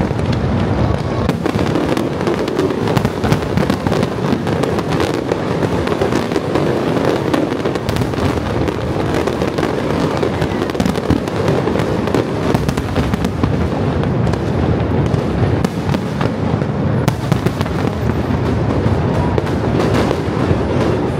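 Aerial fireworks going off in a dense, rapid barrage of bangs and crackles, loud and close.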